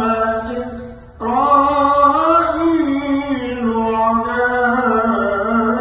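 A man's solo melodic Quran recitation, long drawn-out notes with ornamented bends in pitch, breaking off briefly for a breath about a second in.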